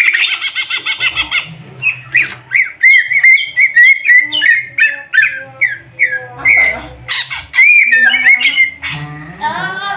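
Male greater green leafbird (cucak ijo) singing loudly and continuously: a rapid, varied run of short whistled and down-slurred notes, with a harsh rasping chatter at the start and a buzzy passage near the end.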